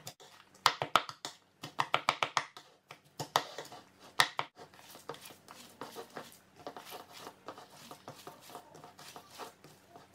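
Hands mixing and squeezing raw minced pork with chopped vegetables in a ceramic bowl: a run of small wet clicks and squishes, sharper and louder in the first four seconds, then softer and quicker.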